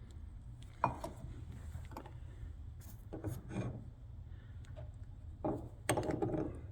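Handling noise from cut-open oil filter parts: scattered light clicks and knocks with rubbing as the steel shells and pieces are picked up and turned over.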